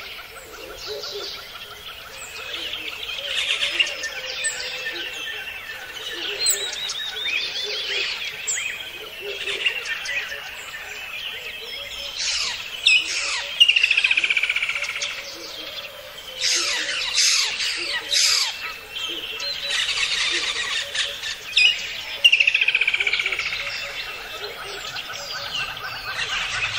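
Rainforest soundscape: many birds chirping and calling over one another, with a fast falling trill that comes back three times, over a faint steady background hum.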